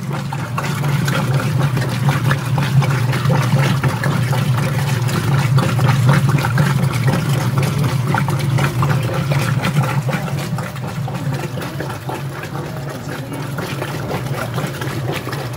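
Whirlpool direct-drive top-load washing machine agitating back and forth, its motor giving a steady low hum under the swish and slosh of water in the tub.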